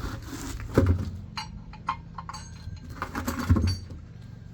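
Two short bursts of an impact wrench, about a second in and near the end, with sharp metallic clinks of sockets and lug nuts between them.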